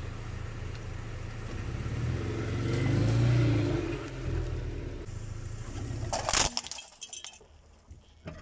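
Car engine running as the car rolls forward, swelling to its loudest around three seconds in. About six seconds in comes a burst of sharp crackling and crunching as something is crushed under a tyre, then a few scattered clicks.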